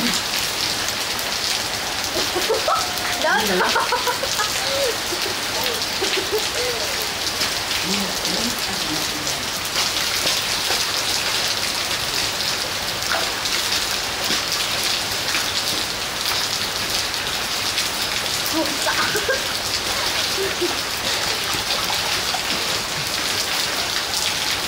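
Heavy rain falling steadily on a flooded concrete yard and surrounding foliage, an even hiss.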